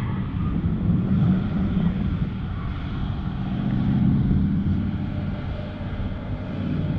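Distant BMW car engines droning as the cars drift across an open lot; the engine sound swells about four seconds in.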